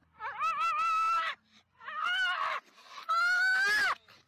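Fluffy black-and-white dog howling in three long, wavering calls, the last the longest, rising in pitch and then dropping away.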